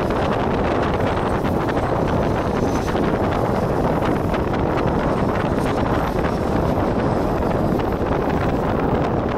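Wind buffeting the microphone over the steady running rumble of a passenger train at speed, heard from an open coach door.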